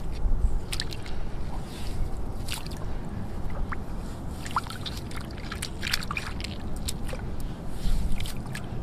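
Hands digging and scooping wet sand in shallow tidal water, squelching and sloshing with water dripping off, and scattered sharp clicks, over a low rumble of wind on the microphone.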